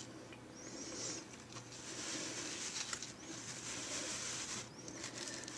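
Faint rustling and light scraping as a papercraft piece decorated with paper flowers is handled and turned on a tabletop.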